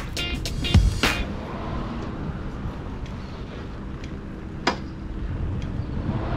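A vehicle engine running at a steady idle, with one sharp click a little past the middle. A couple of loud music beats open it.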